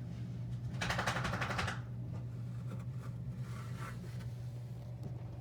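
A steady low electrical hum, with a rapid rattling scrape about a second in and a fainter, shorter one near the middle.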